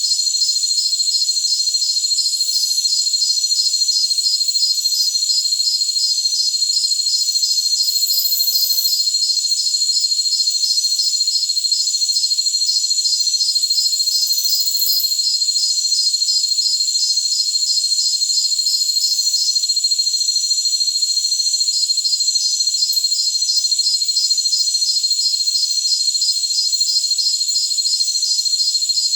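Chorus of jungle crickets: a steady, high-pitched trill overlaid with rapid, evenly spaced chirping pulses. The pulsed chirping stops for a couple of seconds about two-thirds of the way through, then resumes.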